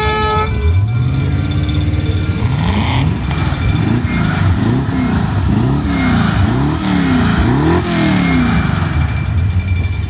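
Two V8 engines, a Range Rover's and a Corvette's, idling and being revved over and over, each rev rising and falling, coming in quicker succession a few seconds before the end and then dropping back to idle.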